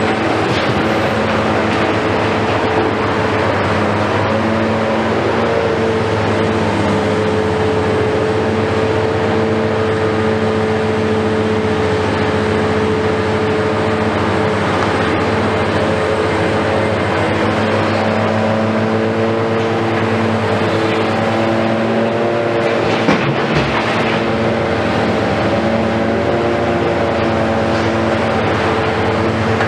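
Diesel engines of heavy demolition excavators running steadily. Their pitch wavers for a few seconds in the latter half, and there is a single knock about three-quarters of the way through.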